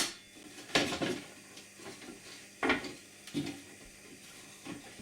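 About five separate knocks and clacks, spaced out, as a metal clamp-on straight edge and a board are handled and set in place.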